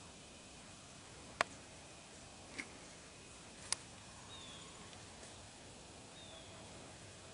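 Quiet woods with three sharp clicks or snaps, spaced a little over a second apart, then two faint short chirps falling in pitch, of a small bird.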